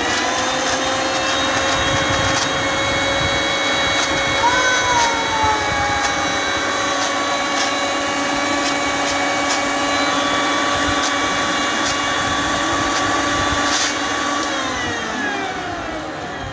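Panasonic MX-AC555 1000 W mixer grinder running at speed with a steady whine and scattered ticks, then switched off about 14 seconds in, its motor whine sliding down as it spins down.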